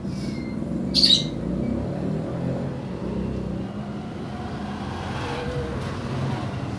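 Steady low background rumble with a light hum, and one sharp, loud squawk about a second in, like a bird's call.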